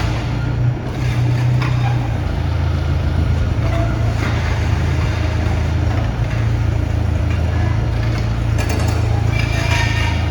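Diesel engine of a 2016 IHI 65NS midi excavator running steadily, with a short burst of higher-pitched noise about nine seconds in.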